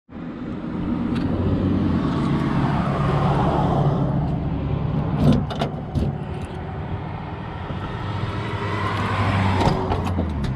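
Road traffic going by, a steady hum that swells and eases. A few sharp clicks about halfway come from a key turning in the truck's door lock, and a latch click near the end from the door handle being pressed.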